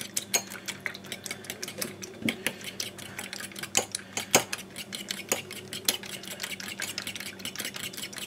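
Metal spoon whisking egg and milk in a small glass bowl, rapid irregular clinks of the spoon against the glass.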